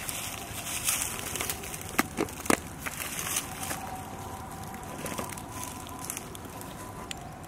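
A hand rubbing red spice powder into raw whole chickens in a plastic bowl: uneven rustling and crinkling as the skin and powder are worked, with a few sharp clicks about two seconds in.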